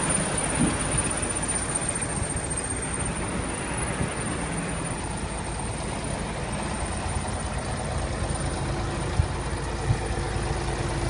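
Heavy vehicle engine running steadily under a dense mechanical noise, with a thin high whine above it and two short sharp knocks near the end.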